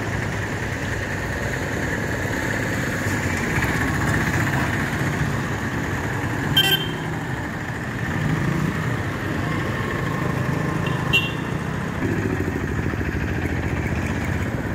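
Street traffic: motorcycle and auto-rickshaw engines running and passing, a steady rumble that swells and fades. Two brief high-pitched beeps cut through, about six and a half and eleven seconds in.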